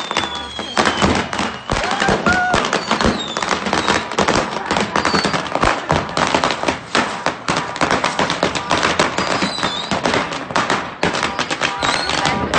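A large stockpile of consumer fireworks going off all at once inside a burning garage: a continuous barrage of rapid, irregular bangs and crackles.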